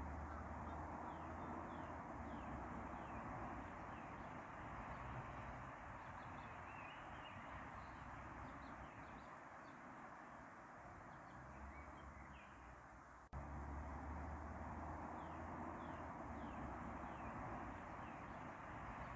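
Outdoor bird ambience: faint, short, high chirps and calls over a steady rushing background with a low rumble. The recording cuts off abruptly about 13 seconds in and starts again.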